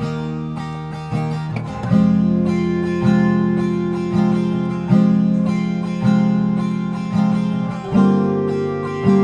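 Background music: acoustic guitar strumming chords, about one strum a second, with chord changes around two seconds in and near the end.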